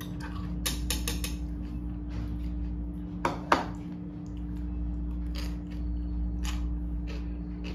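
Metal chopsticks clicking against ceramic bowls and a plate while eating: scattered sharp clinks, the two loudest close together about three and a half seconds in. A steady low hum runs underneath.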